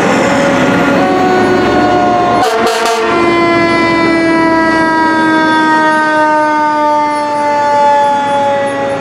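Fire truck air horns sounding in long held blasts, several tones together that slowly drop in pitch, with a short break about two and a half seconds in.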